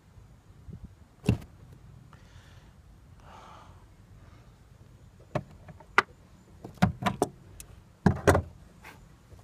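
Sharp clicks and clacks of steel needle-nose pliers working a stuck plastic fuel-line connector on a fuel pump's top flange. Two short scraping rustles come a few seconds in, then a quick run of clicks as the pliers pull free and are handled.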